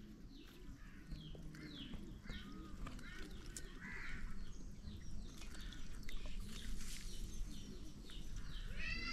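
Birds calling over and over, a string of short downward-sliding calls, over a steady low rumble.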